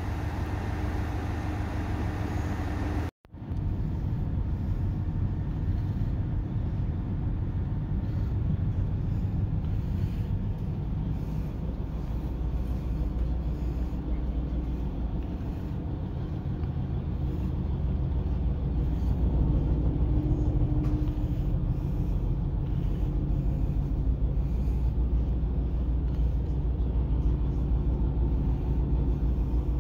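Steady low rumble of the Setsugekka diesel railcar standing at the platform with its engine idling, heard first from the platform and, after a short dropout about three seconds in, from inside the car. The rumble grows somewhat louder about two-thirds of the way through.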